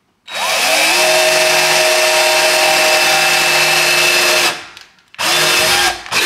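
Black+Decker cordless drill boring a small pilot hole into a door: the motor spins up and runs steadily for about four seconds, stops, then runs again in a shorter burst and a brief blip near the end.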